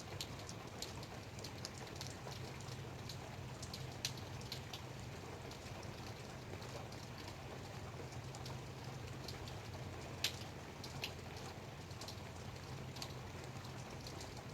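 Light rain falling: a steady hiss with scattered sharp drop ticks, one noticeably louder drip about ten seconds in. A steady low hum runs underneath.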